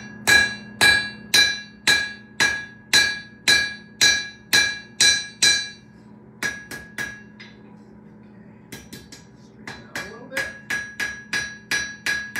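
Hand hammer striking a hot iron hook on a steel anvil, flattening its end. The blows come steadily about twice a second, each with a bright metallic ring. After a brief pause, a quicker run of lighter taps follows.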